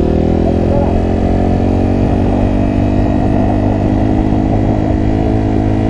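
Honda CRF230F's air-cooled single-cylinder four-stroke engine running steadily at cruising speed on a paved road, heard from on board the bike, its pitch holding nearly level.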